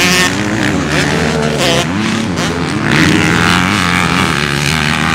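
Dirt bike engine revving on a motocross track, its pitch rising and falling as the throttle is worked.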